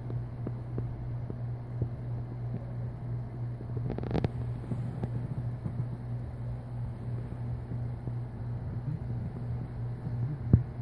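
Cat playing fetch on a quilted bed with a small toy: soft taps and rustles over a steady low hum, a louder rustle about four seconds in and a sharp knock near the end.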